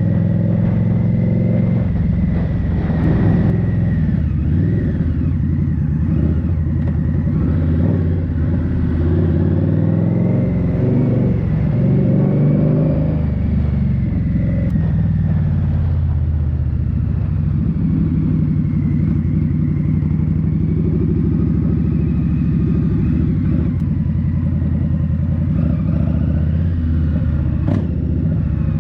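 Indian Scout Bobber's V-twin engine running under way, its pitch rising and falling with the throttle.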